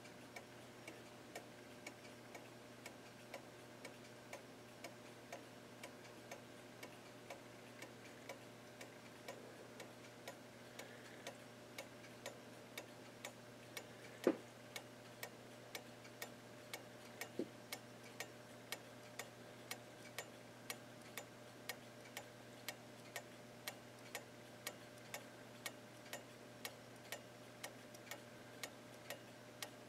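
Seth Thomas 41 AE clock movement ticking steadily, its strip-pallet escapement beating about four ticks every three seconds. It is running a little out of beat, with the timer reading around 8% beat error. A single louder knock comes about fourteen seconds in.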